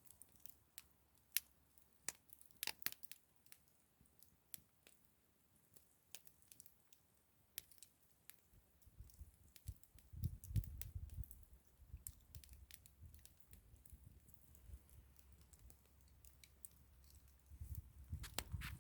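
Campfire crackling: faint, irregular sharp pops and snaps of burning wood. A low rumble joins about halfway through.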